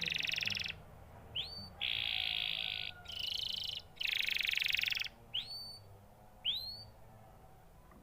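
Domestic canary singing: rapid rolling trills about a second long, alternating with short rising whistled notes.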